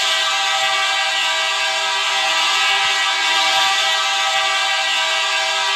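Edmonton Oilers' arena goal horn sounding one long steady blast, signalling a goal just scored.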